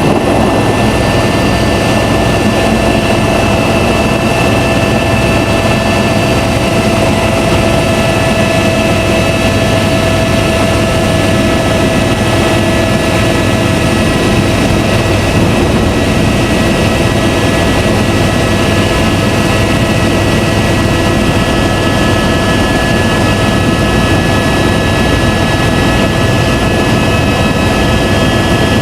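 Helicopter in flight: loud, steady rotor and engine noise with several steady whining tones, unchanging throughout.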